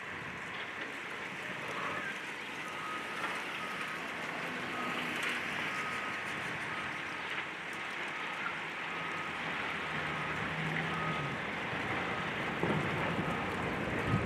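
Demolition-site machinery running under a steady hiss, with a reverse-warning beeper sounding in regular beeps for several seconds. A sharp knock of debris or machinery comes at the very end.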